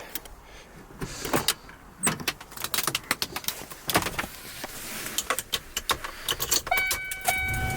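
Irregular clicks and clunks of someone climbing into the cab of a 1996 Ford F350 and handling the door and keys. Near the end, the truck's cab warning chime starts: a steady ringing tone that breaks off briefly and carries on.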